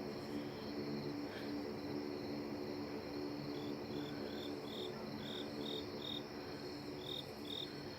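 A steady low droning hum made of several held pitches, from an unseen source in the sky that is not a plane. Crickets or other insects trill over it, with a run of short high chirps, about two to three a second, in the second half.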